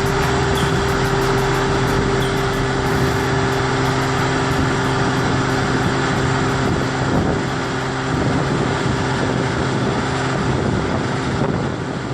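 Diesel engine of farm harvesting machinery, a combine harvester or tractor, running steadily under load with a broad mechanical rush, its steady tone weakening somewhat after about seven seconds.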